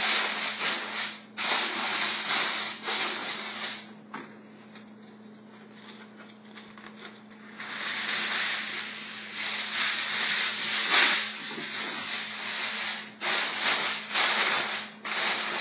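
Aluminium foil crinkling and rustling as it is spread over a foil roasting pan and pressed down around the edges by hand. It stops about four seconds in, leaving a quiet stretch, then starts again in irregular spurts.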